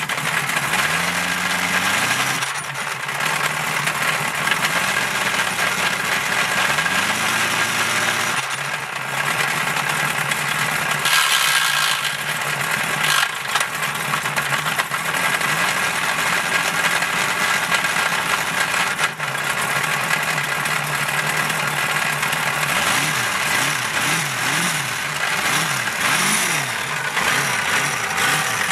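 Boat engine running, its pitch rising twice in the first nine seconds and wavering up and down near the end as it is shifted between drive and reverse, with a short clunk about nineteen seconds in and a steady hiss over it all.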